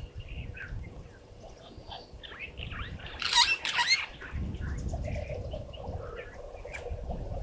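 African wild dogs twittering: scattered short, high bird-like chirps, with a louder flurry about three seconds in. A low rumble of wind on the microphone runs underneath.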